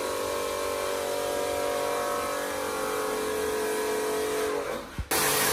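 A steady machine hum made up of several tones, which fades out near the end. It is cut off by a click, and a loud, even hiss follows.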